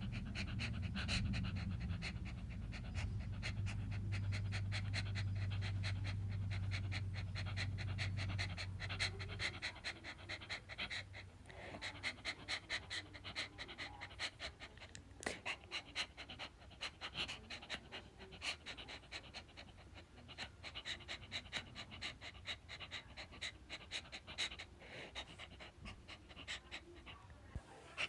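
A dog panting rapidly and rhythmically, a few breaths a second, for the whole stretch. A low steady hum runs underneath for the first nine seconds or so, then stops.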